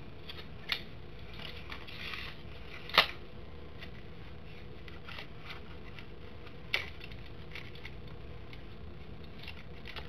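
Small hard objects handled by hand: three sharp clicks, the loudest about three seconds in, among quieter ticks and light rustling.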